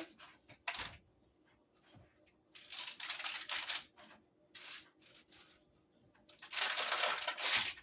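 Kitchen handling sounds as a towel is spread out and the hot bread is brought from the oven: a click about a second in, then bursts of rustling and scraping, the longest and loudest near the end.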